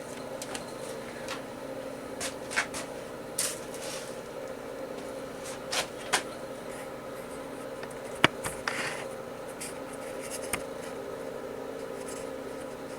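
Scattered light clicks, taps and rubbing from hands handling setup gear at a metal lathe, a dozen or so sharp knocks spread irregularly, the loudest about eight seconds in, over a steady low shop hum.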